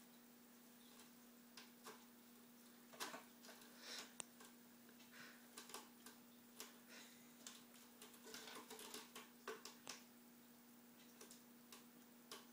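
Faint scratching and ticking of a cat's claws on a sisal-wrapped post and carpeted platform of a cat tree as it plays, in scattered short bouts over a steady low hum.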